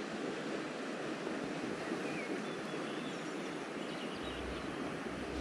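Steady rush of a river flowing past the bank, with a low rumble coming in near the end.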